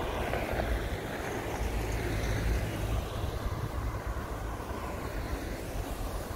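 Cars driving past on a snow-covered city street: steady tyre and engine noise with a low rumble underneath, swelling as a car passes close by early on.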